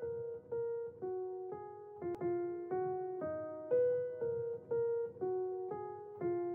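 Background music: a slow, gentle piano melody, a new note struck about twice a second and fading after each.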